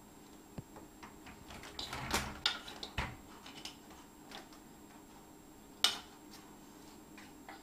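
Wooden spoon tapping and knocking against a plastic high chair: a quick run of clicks and knocks about two to three seconds in, a few lighter ticks, and one sharp knock near six seconds.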